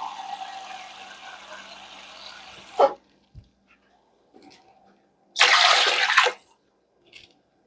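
Water being poured into a cooking pot, the stream thinning and fading over the first three seconds and ending with a sharp knock. A second short, loud burst of rushing noise comes about five and a half seconds in.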